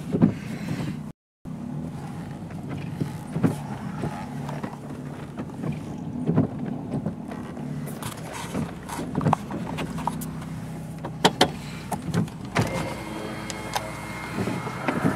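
Car engine running with a steady low hum, heard inside the cabin, with scattered light clicks and knocks. The sound cuts out completely for a moment about a second in.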